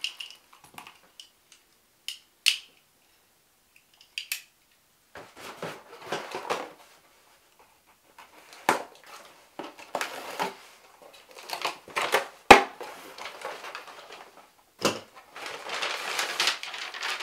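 A cardboard shipping box being opened by hand: packing tape torn and cardboard flaps scraped and rustling, in several bursts of a second or two with pauses between, and a sharp knock a little past halfway.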